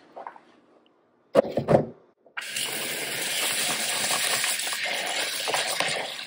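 A few loud knocks, then, about two and a half seconds in, a kitchen tap turns on. Water runs steadily from the tap into a bowl of rice being rinsed by hand.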